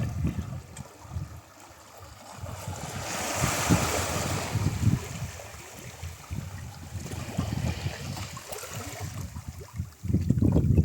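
Ocean waves breaking on a shore: a broad wash of surf swells about three seconds in and slowly fades, with a weaker swell later, over an uneven low rumble of wind on the microphone.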